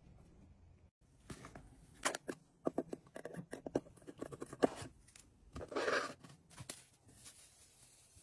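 A knife blade working the metal pour spout of a cardboard salt canister: a run of sharp clicks and scrapes. About six seconds in comes a short rush of salt poured into a cast-iron skillet.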